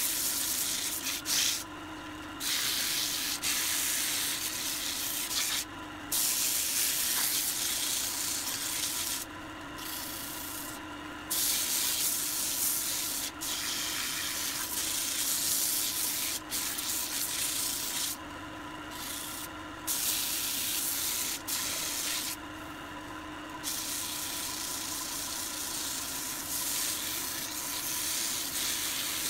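Sandpaper hissing against a turned pine vase spinning on a wood lathe, hand-sanding the workpiece, with several brief breaks when the paper is lifted off. Under it runs the steady hum of the lathe.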